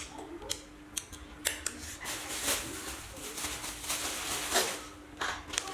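Crunching and crackling of crab shell being eaten, with a few sharp clicks before it. A steady low hum runs underneath.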